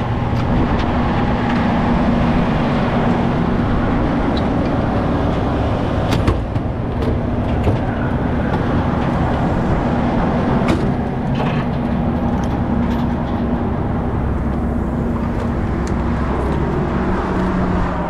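Heavy-duty rotator tow truck's diesel engine idling steadily at close range, with a few sharp clicks and knocks, about six seconds in and again near eleven seconds, from compartment doors and gear being handled.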